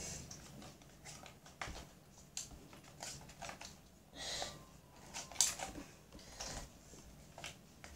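Faint, scattered clicks and rustles of things being handled, with a short hiss about four seconds in.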